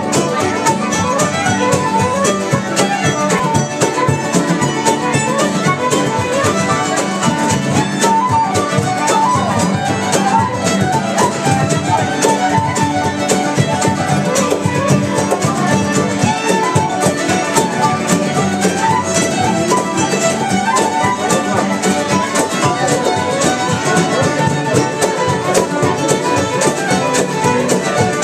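Traditional pub session: fiddles and a wooden flute playing a tune in unison over strummed acoustic guitars, with a steady, driving rhythm.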